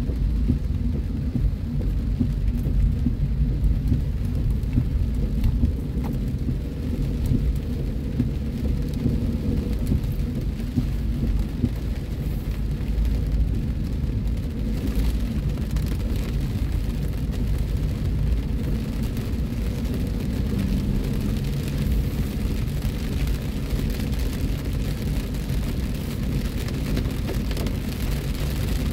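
Heavy rain falling on a car's roof and windshield, heard from inside the cabin as a dense spatter of drops over a steady low rumble of the car and its tyres on the wet road.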